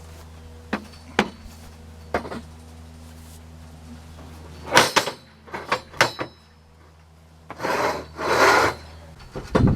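Scattered wooden knocks and clicks over a steady low hum, then two short scraping or rubbing sounds near the end.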